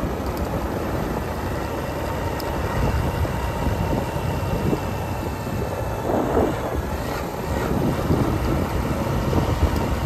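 Wind rushing and buffeting over the microphone on a moving vehicle, with a steady drone from the vehicle running underneath and louder gusts about six seconds in and near the end.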